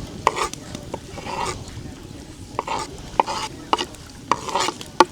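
Cooking utensils being handled: a run of sharp clicks and knocks, irregularly spaced, with short scraping swishes between them, like a utensil working in a bowl.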